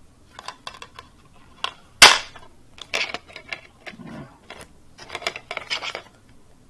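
A cracked white plastic DVD keep case being opened and handled. There is one loud plastic snap about two seconds in, then scattered light clicks and rattles as the case and the disc on its hub are handled.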